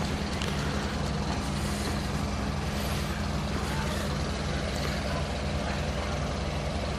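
A vehicle engine idling steadily: a constant low hum over the general hiss of a snow-jammed street.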